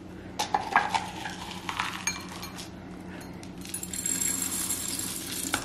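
A small plastic cup clinking and scraping against the stainless-steel mouth of a vacuum bottle as soup solids are tipped in. There are a few sharp clinks in the first second or two, then a steady scratchy hiss of scraping over the last two seconds.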